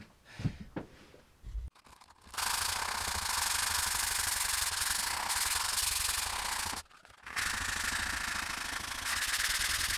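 Sandpaper wrapped over a sponge scrubbed back and forth along the flat steel of a curved Silky pruning saw blade: a steady rasping rub that starts a couple of seconds in, breaks off briefly about seven seconds in, then carries on.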